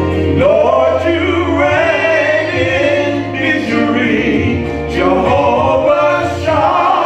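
Two men singing a gospel song into handheld microphones, their voices sliding through long held notes over instrumental accompaniment with steady held low notes.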